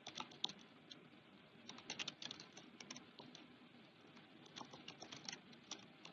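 Faint keystrokes on a computer keyboard, typed in short irregular bursts with brief pauses between them, over low steady room noise.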